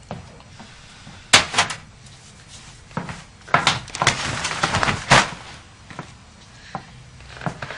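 Several sharp knocks and clunks of household movement, with a stretch of rustling between about four and five seconds in.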